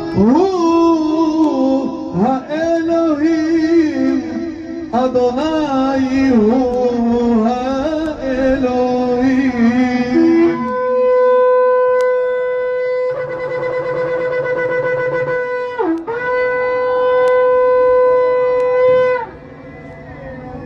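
A long twisted-horn shofar being blown. It starts with a series of blasts that swoop and waver in pitch, then from about halfway plays two long, steady held notes, each dropping in pitch as it ends.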